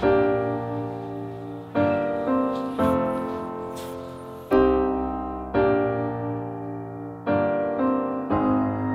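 Slow, soft piano music: chords struck one after another, each ringing and fading before the next.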